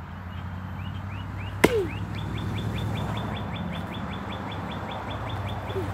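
A single axe blow into a rotten log about a second and a half in. A bird calls a long, evenly spaced run of short high chirps that quickens to about seven a second.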